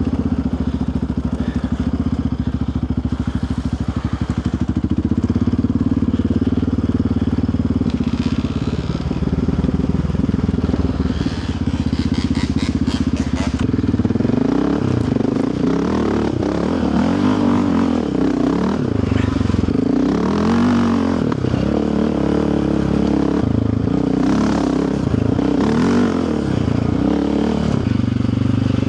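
Yamaha Raptor 700R sport quad's single-cylinder four-stroke engine running steadily under way, then from about halfway revving up and down again and again as the throttle is worked. A short rattle of clicks comes just before the revving starts.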